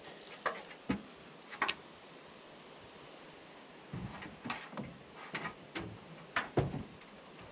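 A series of short, sharp clicks and knocks: three spaced out in the first two seconds, then a busier cluster between about four and seven seconds in.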